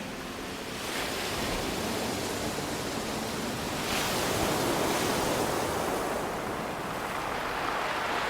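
Ocean waves breaking and washing up a pebble beach, one swell building about a second in and a stronger one around four seconds.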